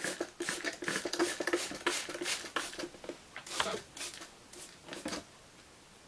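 Plastic trigger spray bottle misting water: a quick run of short hissing squirts, about three a second, then a few spaced-out ones before they stop about five seconds in.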